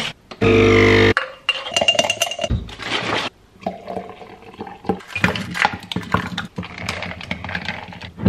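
Espresso machine's pump buzzing briefly near the start, then coffee-making handling: liquid poured into a glass jar and a metal straw stirring and clinking against the glass.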